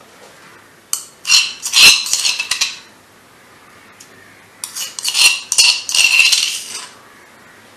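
A spoon clinking and scraping against a dish in two bouts, about a second in and again from about four and a half seconds, as crushed ginger is spooned into a bowl of warm water.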